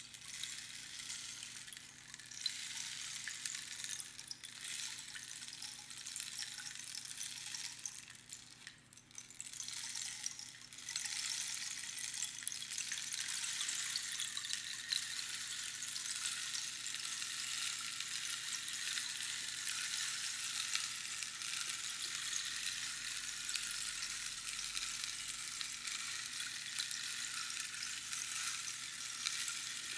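Rainstick being tipped, its pebbles trickling down past the pins inside the tube in a steady rain-like hiss. About a third of the way in the flow dies away briefly, as when the stick is turned over, then picks up again and runs on steadily.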